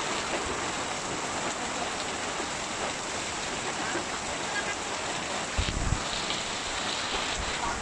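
Steady rain falling, an even hiss of drops on surfaces. A short low rumble stands out a little before six seconds in.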